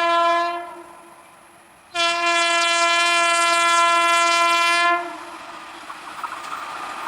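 Train horn sounding one steady tone: a blast that cuts off about half a second in, then a second blast of about three seconds starting about two seconds in. After the second blast, the rumble of the approaching train builds near the end.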